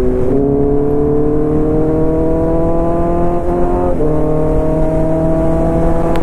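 Kawasaki Z900's inline-four engine pulling hard under acceleration, its pitch climbing steadily. About three and a half seconds in it breaks and drops briefly as it shifts up a gear, then climbs again, with wind rush underneath.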